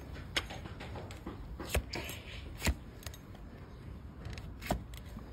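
Large flat hoof knife paring a donkey's hoof wall, the blade cutting down through the horn onto a rubber-topped stand. Several sharp crunching cuts come at uneven gaps of about a second, the loudest near the middle.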